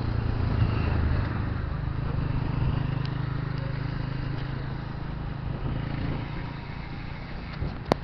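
Wind rumbling on the microphone and road noise while riding a road bike, with motor traffic passing, and a sharp click just before the end.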